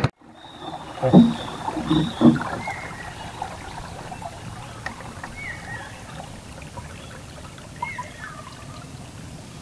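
Small wooden boat moving on calm water: a few low knocks and splashes against the hull in the first couple of seconds, then a soft steady wash of water. A bird calls several times with short down-slurred notes.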